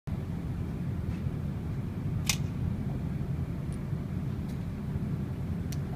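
A few light metallic clicks as a revolver is handled and loaded with cartridges, the sharpest about two seconds in, over a steady low background rumble.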